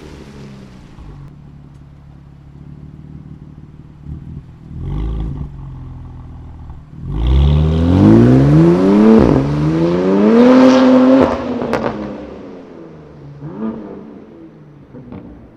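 BMW S55 twin-turbo inline-six through a titanium equal-length, single mid-pipe valved exhaust. It starts at a low, steady run with a brief blip about five seconds in. About seven seconds in it accelerates hard, the pitch climbing, with a gear change around nine seconds, then climbs again before lifting off and fading.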